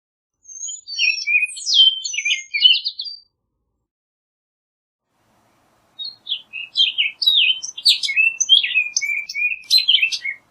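Orchard oriole singing: two rapid, jumbled phrases of varied whistled and chattering notes, the second longer and starting about six seconds in after a pause.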